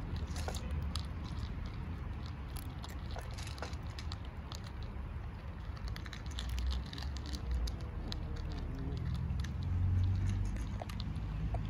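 Several kittens and cats eating dry kibble from plates: many small, irregular crunches and clicks, over a steady low rumble.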